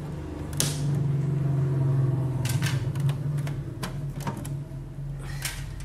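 Plastic reptile enclosures being lifted, shifted and set down by hand, giving a string of irregular sharp clicks and knocks of plastic on plastic, over a steady low hum.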